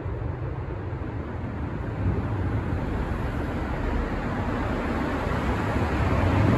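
Steady rumble of road traffic inside a city road tunnel, swelling a little toward the end.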